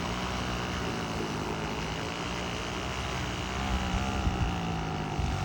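Small weed-eater (string-trimmer) engine driving a kayak, running steadily at an even pitch.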